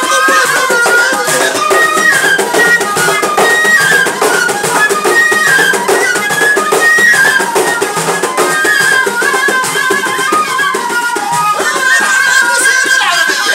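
Two gasba reed flutes playing a wavering melody together over bendir frame drums beating a steady, fast rhythm: Moroccan Jilala music.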